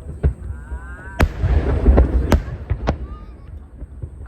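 Aerial fireworks shells bursting: about five sharp booms in four seconds, the loudest about a second and two seconds in, over a continuous low rumble and crackle of the display.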